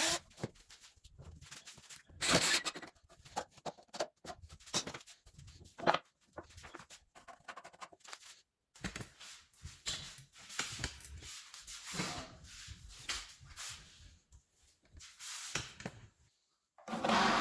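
Irregular knocks, clicks and rubbing as tools and parts are handled by hand on a workbench, with a few sharper knocks about two and six seconds in and a short silent gap near the end.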